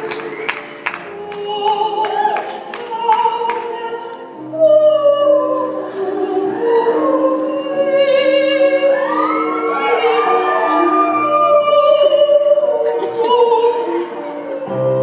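Live band music with wordless singing: long held vocal notes with vibrato that slide between pitches over sustained accompaniment.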